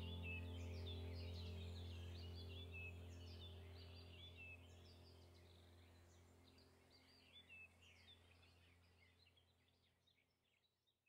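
Faint background sound bed fading out: a low steady drone with bird-like chirps over it. It dies away to near silence by the end.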